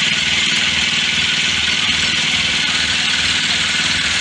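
Engine idling steadily with a low, even throb.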